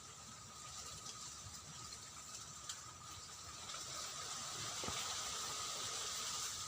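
Steady outdoor wind noise, a rushing hiss that grows a little louder in the second half, with a faint steady high tone underneath and a couple of faint ticks.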